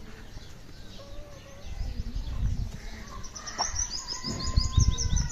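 A small wild bird chirping in a fast run of short, high-pitched notes during the second half, over faint calls from the farmyard chickens. A low rumble underneath grows louder toward the end.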